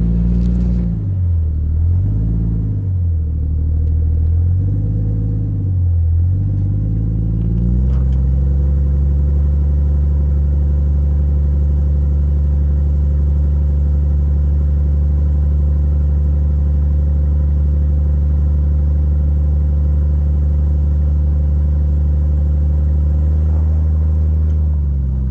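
Lifted Jeep Cherokee XJ rock crawler's engine revving up and down about three times, then settling about eight seconds in to a steady low engine speed that holds to the end.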